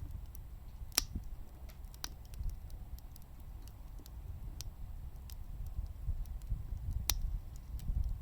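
Firewood crackling in a wood gas stove: scattered sharp pops, the loudest about a second in, at two seconds and near the end, over a low, uneven rumble.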